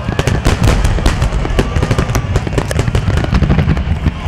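Aerial fireworks shells bursting in a rapid, unbroken barrage: a continuous run of sharp bangs and crackles over a deep, steady rumble.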